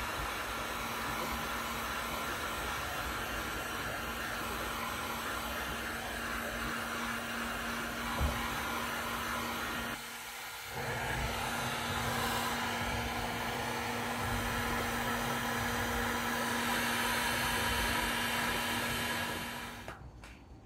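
Electric heat gun blowing steadily with a faint motor hum, shrinking heat-shrink tubing over indicator wire joints. It breaks off briefly about halfway, runs again, and stops near the end.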